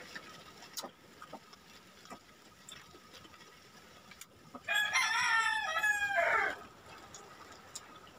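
A rooster crowing once, about halfway through: a call of nearly two seconds that drops in pitch at the end. Faint clicks of eating by hand come before and after it.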